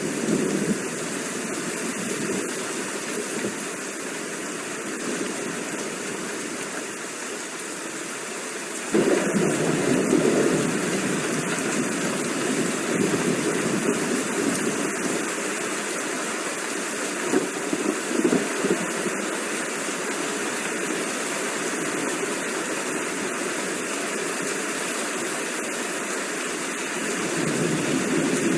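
Steady rainfall, an even hiss of falling water. About nine seconds in it abruptly becomes louder and fuller.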